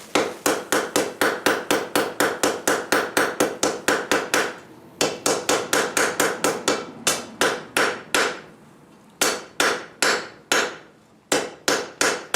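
Blacksmith's hammer striking hot steel on an anvil in quick, ringing runs of about four or five blows a second, broken by short pauses, in an attempt to forge-weld folded steel fluxed with borax.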